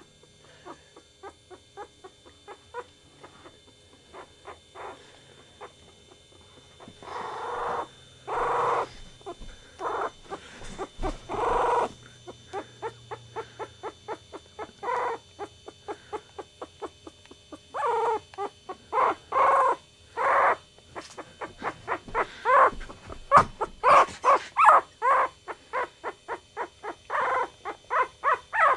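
Chihuahua puppies whimpering and squeaking: a steady run of short, high squeaks, two or three a second, with louder drawn-out whines coming in clusters in the middle and second half.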